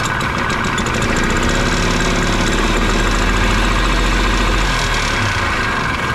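The early-1980s Par Car golf cart's two-stroke Harley-Davidson engine running under throttle, driving the CVT belt clutch so it engages and spins with the rear wheels off the ground. The engine runs poorly, which the mechanic puts down to a carburetor that needs cleaning.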